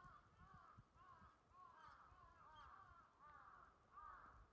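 Faint, many overlapping bird calls, several a second, as from a distant flock, over a low rumble.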